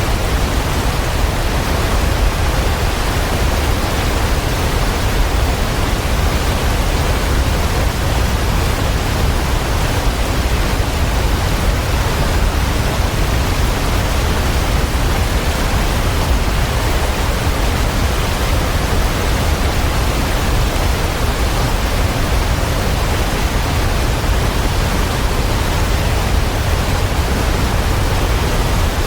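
Waterfall: a steady, loud rush of falling water, even and unbroken throughout.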